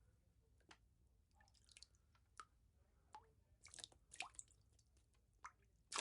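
Water droplets falling one at a time at an irregular pace, about eight faint drips, some with a short rising plink; the loudest comes near the end.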